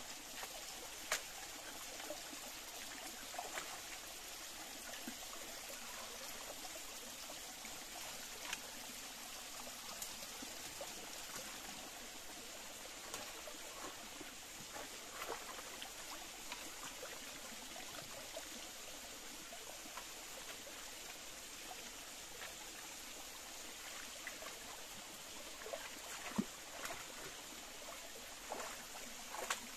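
Small forest stream trickling steadily over rocks, with a few short knocks and splashes from wading and working a hand net in the shallow water; the sharpest come about a second in and near the end.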